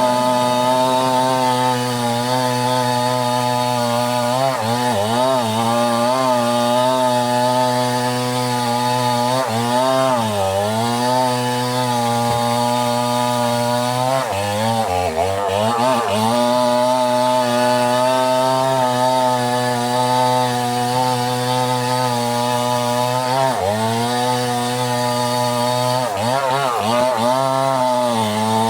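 Two-stroke chainsaw running at high revs while cutting wood. Its engine pitch sags briefly and recovers about five times as the chain bites into the cut.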